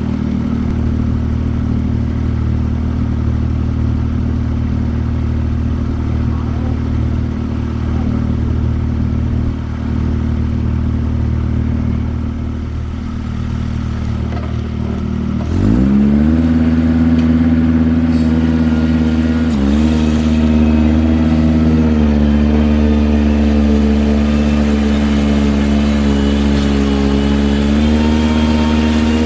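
Ventrac 4500Z compact tractor's engine running steadily at low speed, then revving up quickly about halfway through and holding a higher, steady speed, with a brief dip a few seconds later.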